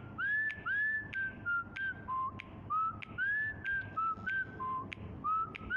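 A string of short whistled notes that step between a few pitches, some sliding up into a held tone, with sharp clicks between them.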